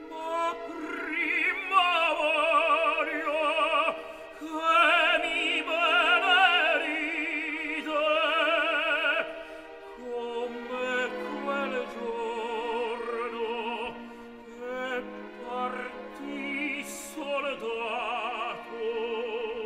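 Operatic tenor singing an Italian aria with a wide vibrato on long held notes, with an orchestra accompanying softly underneath. The voice comes in right at the start after a brief hush.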